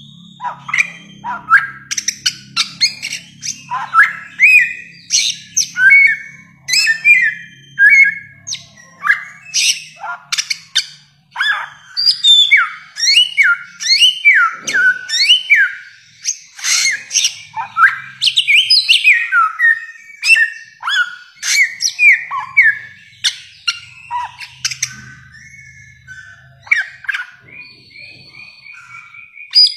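Bare-throated whistler (samyong) singing a rapid, varied run of loud whistled notes, many of them sliding sharply down in pitch. Toward the end the notes turn into a string of short, even whistles. A faint low hum sits underneath parts of it.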